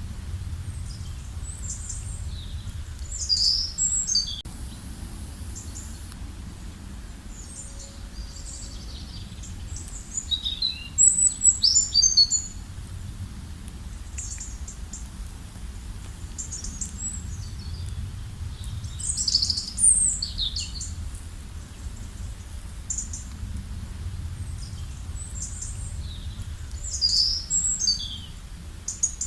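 Songbirds singing: a loud high song phrase comes back about every eight seconds, with softer chirps between, over a steady low rumble.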